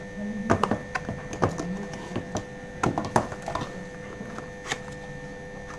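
Hands handling and opening a smartphone's retail box: scattered taps and clicks of fingers and lid against the box, over a faint steady electrical hum.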